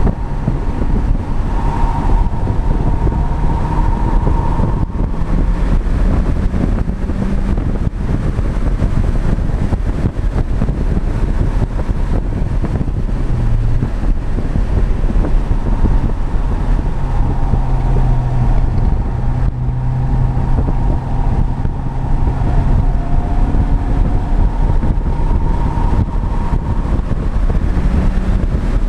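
MINI's engine running hard on a race track, heard from inside the cabin over heavy road and wind noise. The engine pitch steps up and down with the driving.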